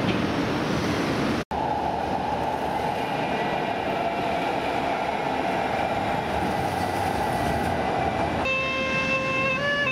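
Houston METRORail light-rail train running along its street track, a steady rushing noise, cut by a brief dropout about a second and a half in. Near the end a saxophone starts playing a melody.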